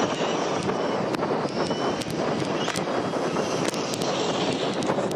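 Traxxas E-Maxx electric RC monster trucks driving on sand: a high electric motor whine that shifts in pitch with the throttle, over steady drivetrain and tyre noise with scattered small clicks.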